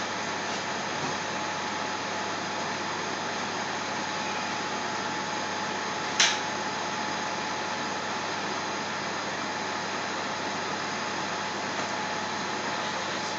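Steady fan-like whirring hiss with a faint high hum running through it, and one sharp click about six seconds in.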